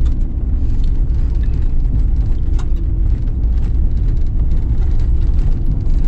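Steady low rumble of a moving vehicle heard from inside the cabin: engine and tyre noise while driving, with a few faint ticks.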